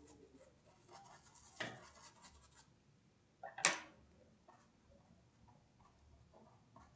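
Paintbrush scrubbing paint onto cloth in short strokes, heard as a faint scratching, with two brief louder scrapes, one about a second and a half in and a sharper one about three and a half seconds in.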